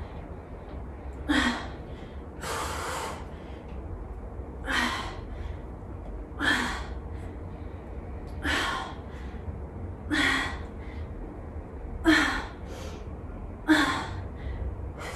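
A woman's forceful exhales, about nine of them, one every second and a half to two seconds, timed with each repetition of a side plank crunch. Several start with a short grunt. It is the hard breathing of high-intensity exercise, with a steady low hum underneath.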